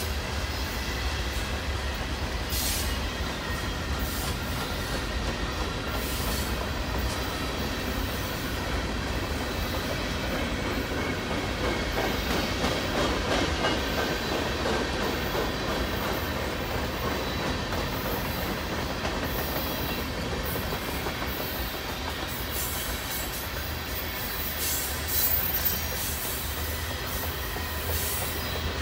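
Freight cars of a long mixed manifest train rolling past at steady speed: a continuous rumble of steel wheels on rail, with occasional clicks over rail joints and a thin high squeal from the wheels underneath.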